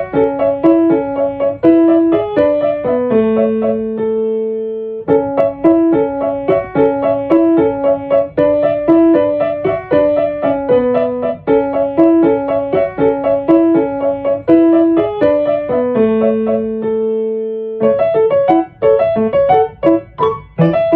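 Solo piano music: a repeating pattern of notes, broken twice by a long held chord, with a quicker passage near the end.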